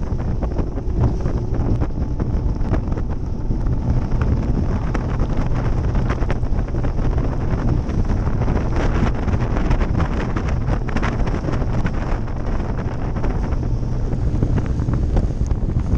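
Heavy wind buffeting the microphone of a bass boat running at speed, over the steady low rush of the boat's engine and the water. Frequent short knocks run through it.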